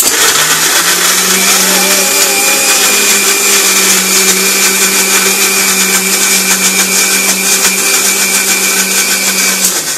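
Electric mixer grinder with a steel jar grinding garlic, onion, ginger and red chilli into a wet paste. The motor switches on abruptly, comes up to speed within the first second, runs loud and steady with a constant hum and whine, and is switched off near the end, spinning down.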